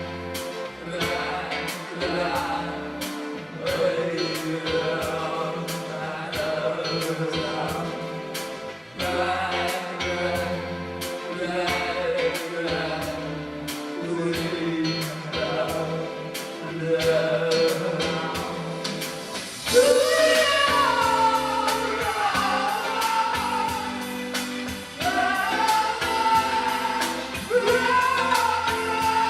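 A song with a steady beat and sustained chords, with singing; a stronger lead voice comes in about two-thirds of the way through.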